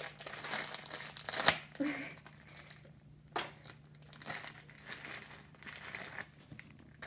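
Clear plastic packaging crinkling and rustling in irregular bursts as a squishy toy is unwrapped and pulled out of its bag, with a sharp snap about a second and a half in.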